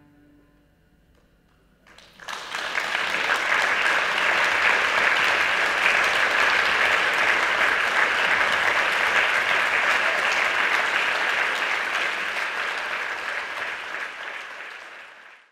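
Audience applause breaks out about two seconds in, after the last notes of music die away, and goes on steadily before tailing off near the end.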